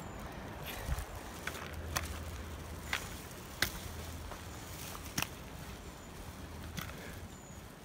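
Footsteps on a gravelly dirt trail, with the sharp clicks of trekking pole tips striking the ground about once a second.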